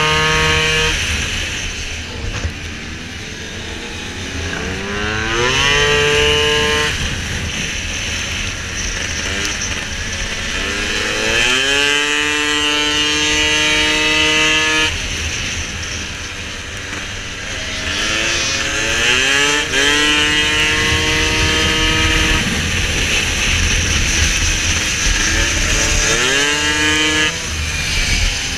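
Piaggio SKR racing scooter's two-stroke engine at full throttle, repeatedly climbing in pitch, holding high, then dropping off when the throttle closes, about four times.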